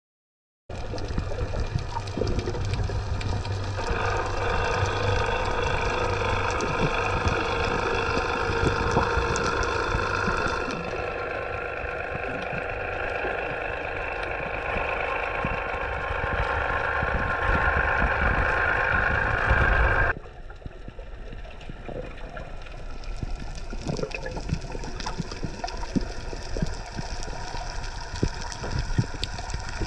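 Underwater recording of a boat engine's steady drone carried through the water, changing in tone a couple of times. It cuts off suddenly about twenty seconds in and gives way to a quieter underwater hiss with scattered clicks and crackles.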